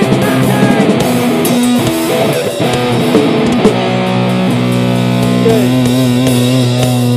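Thrashcore band playing live: distorted electric guitars, bass and drums. From about four seconds in, the guitars and bass hold a long, ringing chord as the song draws to its close.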